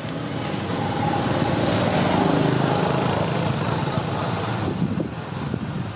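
A motor vehicle passing. The engine and road noise swell about a second in, hold, and fade near the end.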